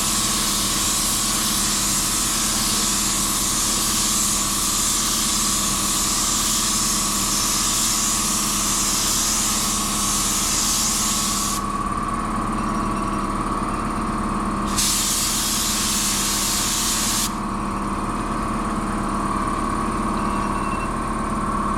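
Paint spray gun laying a second coat of clear lacquer: a loud steady hiss that stops about halfway through, comes back for a couple of seconds, then stops again. A steady motor drone runs underneath.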